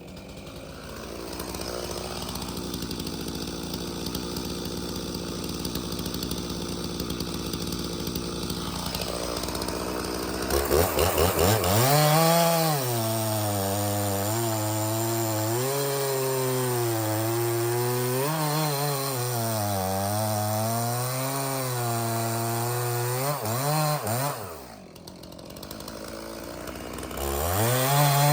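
Stihl MS 391 two-stroke chainsaw running, steadier and quieter for about the first ten seconds, then opening up to high revs with its pitch rising and falling under load as it saws through firewood rounds. Near the end it drops off briefly, then revs up again.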